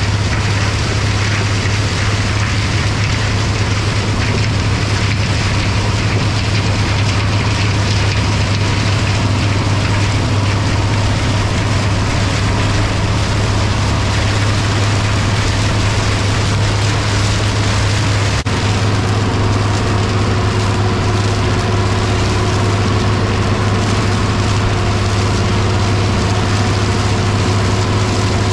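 International 1256 tractor's turbocharged six-cylinder diesel engine running steadily under load, pulling an International stalk chopper that shreds standing corn stalks with a steady rushing hiss. About two-thirds of the way through there is a brief click, and a steady whine joins in.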